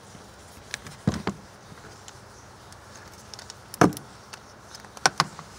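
Handling noise: scattered knocks and scrapes as the camera is pushed down among the engine bay hoses and brackets, the loudest just before four seconds in.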